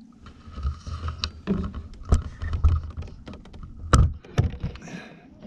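Irregular knocks and clicks of gear being handled in an open canoe, the sharpest about two and four seconds in, over a low rumble.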